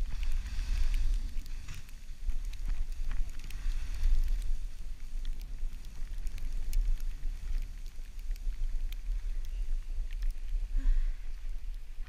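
Wind buffeting the microphone: an uneven low rumble that swells and dips, with a faint hiss and scattered small clicks over it.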